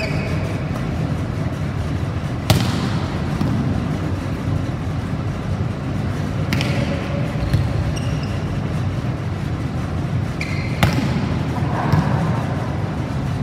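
A volleyball being struck by hand several times in a rally, as sharp slaps a few seconds apart that ring on in the hall's echo. The loudest slap comes a few seconds in. A steady background hum runs underneath.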